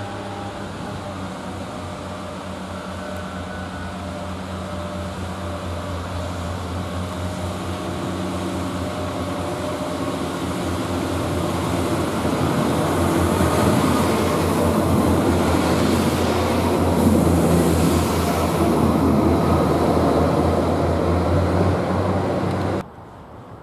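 Class 144 Pacer diesel multiple unit arriving at the platform, its diesel engine running with a steady low drone that grows louder as it comes close. A brighter hiss joins in around the middle, and the sound cuts off suddenly about a second before the end.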